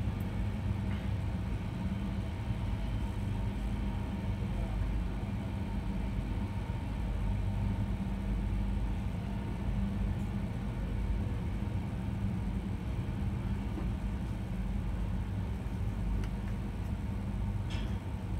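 Steady low rumble with a constant hum, heard from inside a passenger carriage as it is shunted slowly along rails onto a train ferry's deck.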